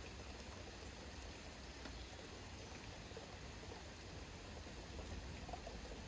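Faint suburban backyard ambience: a steady hiss of light rain over a low rumble of distant traffic.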